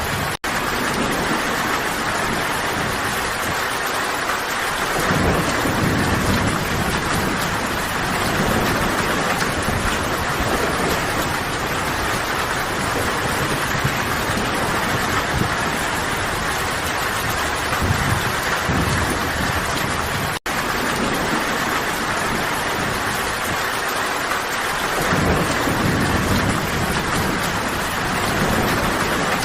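Steady heavy rain, with deep rumbles of thunder swelling up every several seconds. The sound cuts out for an instant twice.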